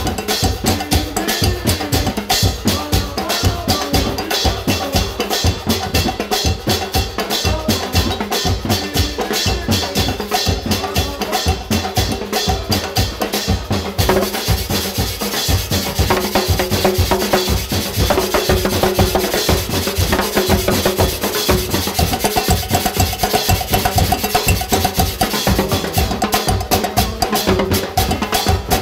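Carnival percussion band drumming a fast, steady beat: wooden sticks pound large plastic barrels used as bass drums, over a snare drum and a metal shaker.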